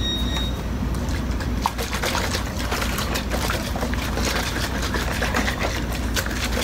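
Liquid sloshing and splashing inside a shaker bottle shaken hard and fast, mixing a powdered supplement drink, with rapid irregular knocks of liquid against the bottle.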